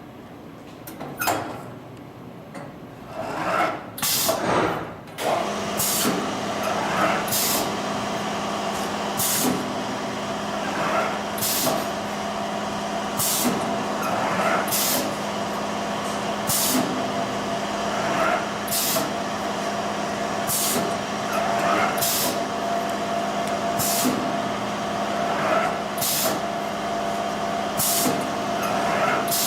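Automatic hot-knife webbing cutting machine running its cutting cycle: a steady machine hum with a short hiss about every two seconds, one per feed-and-cut stroke. A few scattered knocks and hisses in the first five seconds come before the regular rhythm settles in.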